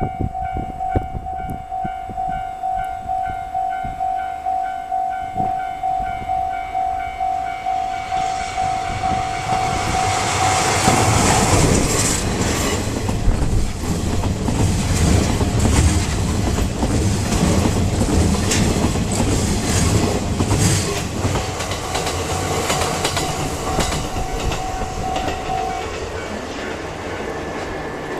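Japanese level-crossing warning bell ringing at about two strokes a second, then a DD51 diesel-hydraulic locomotive and its freight wagons pass from about eleven seconds in, louder than the bell: a heavy rumble with wheel clicks over the rail joints as the wagons roll by.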